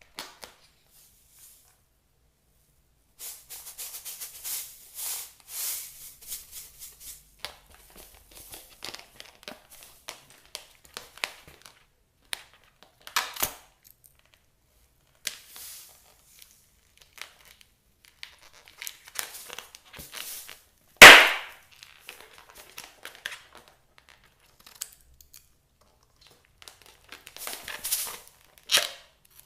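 Slime being mixed and worked by hand: sticky crackling and clicking, with sharp pops of trapped air. The loudest pop comes about two-thirds of the way through, and another comes at the end.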